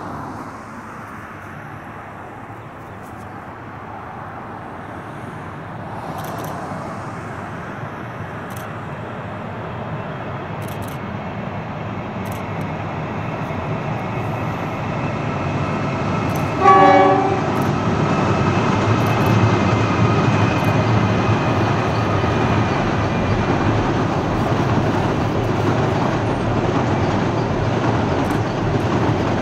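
Two NR class diesel-electric locomotives hauling a long passenger train, their engine noise building steadily as they approach. Just past halfway the horn sounds once, a short toot, and then the engines and carriages pass with a steady heavy drone.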